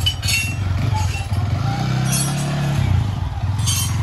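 Yamaha R15 V3's single-cylinder 155 cc engine idling, with one short rev about two seconds in that lasts about a second before settling back to idle.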